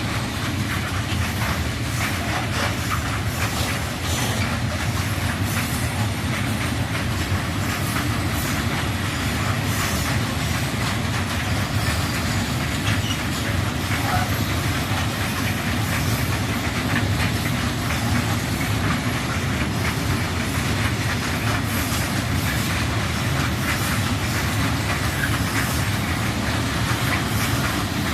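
Freight train of Eas open coal wagons rolling past, a steady loud rumble of steel wheels on rail with many irregular clicks and clatters over the rail joints.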